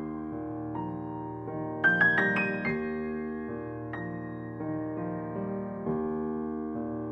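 Piano background music: sustained chords, with a quick run of rising notes about two seconds in.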